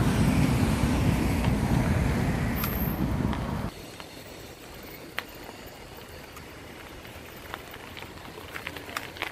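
Wind buffeting the phone microphone, a heavy low rumble that cuts off abruptly a little over three seconds in. After that comes quiet outdoor background with a few faint ticks.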